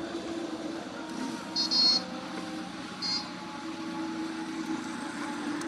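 Two short, high-pitched electronic beeps, the first longer than the second and about a second and a half apart, over a steady low mechanical hum.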